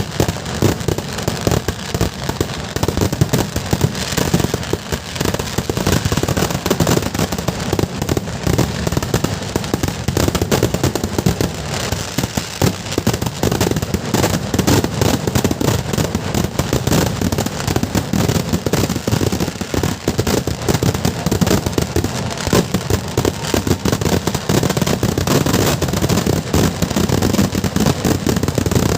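Kerala temple-festival fireworks (vedikkettu): a dense, unbroken barrage of firecracker bangs, many a second, with no pause.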